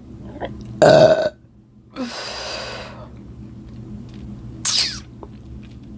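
A woman burps loudly once, about a second in. A breathy noise follows about a second later, and a brief high falling squeak comes near the end.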